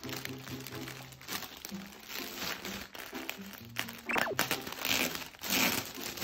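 Clear plastic clothing bag crinkling and rustling in irregular bursts as hands handle it and pull it open around a folded sweatshirt. It is loudest in the second half.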